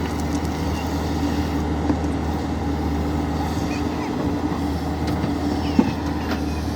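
Diesel engine of a JCB 3DX backhoe loader running steadily under work, with a few scattered clanks and one sharp knock near the end.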